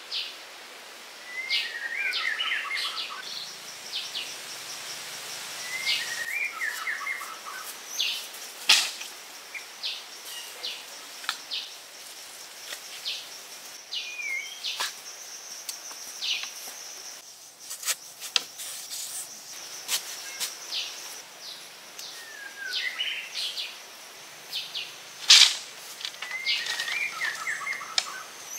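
A songbird repeats a short falling phrase every few seconds over a steady, high insect drone. Sharp knocks and clicks come from wooden sticks being handled and fitted into a frame, the loudest about nine seconds in and again near the end.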